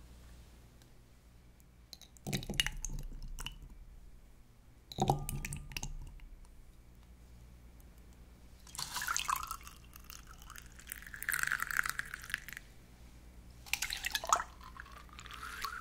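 Two wet, sticky plops as spoonfuls of tapioca pearls in thick brown-sugar syrup are scooped up. Then milk tea is poured through a fine mesh strainer into a glass over the pearls, twice, the second pour rising in pitch as the glass fills.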